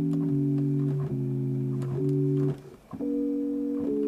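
Pure sine-wave tones from a home-made software synthesizer played from a MIDI keyboard, two to four notes held together as chords that change every half second to a second. There is no envelope: each note starts and stops abruptly with a small click. A short break comes about two and a half seconds in.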